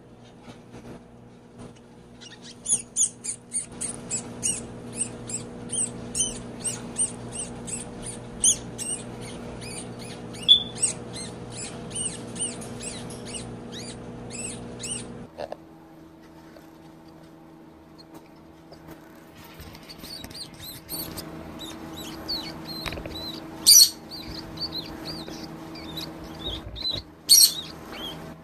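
Fuzzy rat pups squeaking over and over in short high-pitched distress squeaks while a corn snake seizes and constricts them, over a steady low hum. There is a pause in the middle, and two sharp clicks come near the end.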